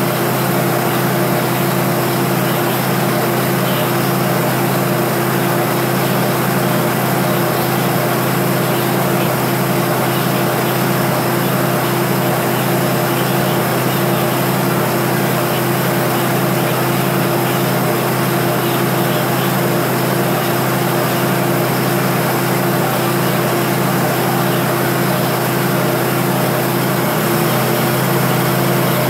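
Diesel passenger train's engine idling at a standstill: a loud, steady hum with a constant drone that does not change.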